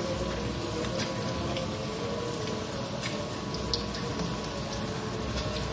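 Eggplant simmering in spiced broth in a pan on a gas stove, a steady bubbling hiss, mixed with oil frying in a wok on the back burner and a few light pops.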